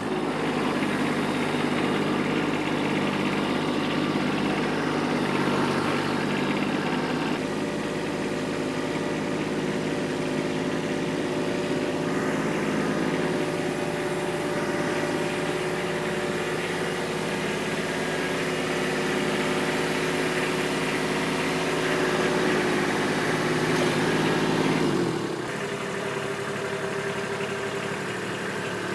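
Kubota B2601 compact tractor's three-cylinder diesel engine running steadily. Near the end its note drops and it runs a little quieter.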